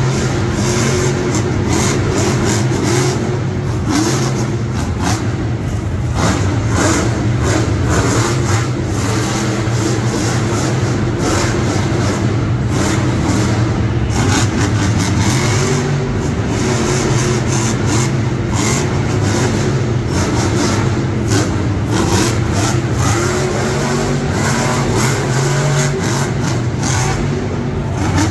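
Monster truck engine running hard and revving, its pitch rising and falling over the whole stretch.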